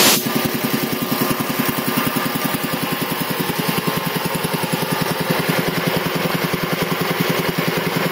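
Quincy QR-325 belt-driven air compressor pump, run by a 5 hp single-phase motor and slowed to about 620 rpm, running under load and building tank pressure with a fast, even pumping beat. A loud hiss cuts off just after the start.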